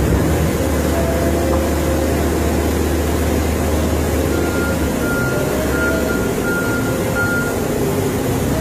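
Wheel loader's diesel engine running steadily, with the machine's reversing alarm sounding a string of short high beeps for about three seconds in the middle as it backs up.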